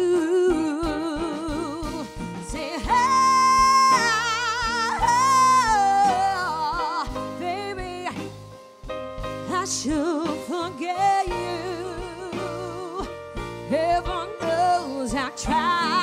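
Live soul ballad: a woman sings wordless runs with heavy vibrato, with a loud, long held high note about three seconds in, over grand piano accompaniment.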